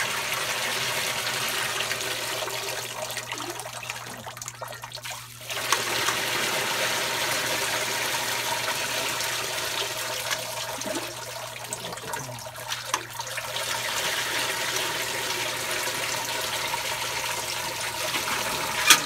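Thin clay slip pouring from a metal bucket into a mesh strainer over doubled window screen, a steady splashing pour being sieved to remove coarse bits. The pour drops away briefly twice, and two sharp knocks come near the end.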